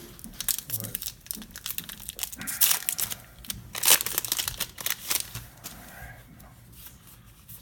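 Foil wrapper of a Magic: The Gathering booster pack crinkling and tearing as it is pulled open, in a run of irregular crackles with louder bursts a few seconds in.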